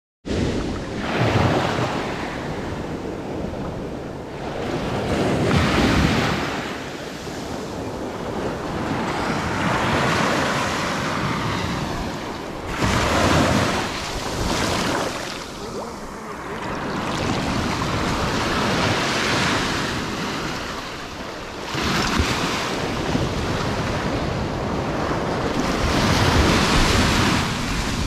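Atlantic Ocean surf washing in over the sand and draining back, swelling and fading every few seconds.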